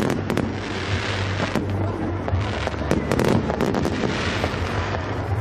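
Aerial firework shells bursting in a display: a steady rattle of crackling and popping with many sharp bangs, clustered right at the start and again about a second and a half and three seconds in.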